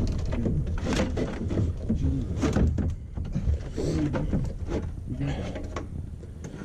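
Men talking in the background, not clearly worded, with a few sharp knocks and clunks of work on a car body.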